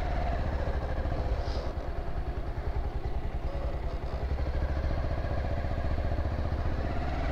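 Bajaj Pulsar 220F's single-cylinder engine running as the motorcycle pulls away and rolls slowly, heard from the rider's seat. The engine note dips and rises gently.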